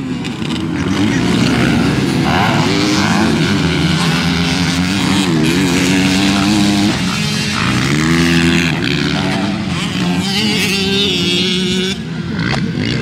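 Several motocross dirt bike engines running hard at once, their pitch repeatedly climbing and dropping as riders rev and shift gears.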